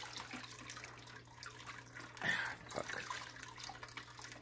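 Aquarium filter water trickling and splashing into the tank while the old filter cartridge is worked out by hand, over a steady low hum, with one brief louder splash-like burst about two seconds in.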